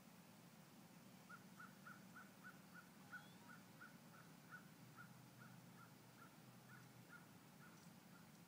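Near silence, with a bird faintly calling a long, even run of short, high notes, about four a second.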